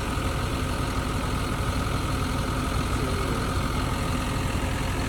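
John Deere 6155M tractor's diesel engine idling steadily.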